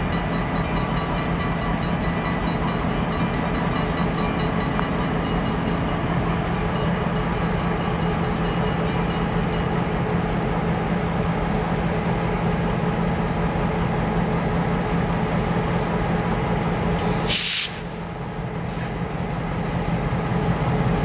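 Diesel locomotive engine running with a steady low drone as the Reading & Northern No. 2011 moves slowly along the yard track. About 17 seconds in comes a short, sharp hiss of air.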